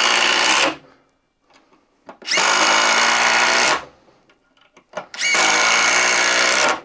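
DeWalt DCF840 brushless 20V impact driver driving 3½-inch deck screws into a pressure-treated 4x4. It runs in three loud bursts of about a second and a half each, one screw after another: the first ends just under a second in, the second comes a little past two seconds in, and the third comes about five seconds in.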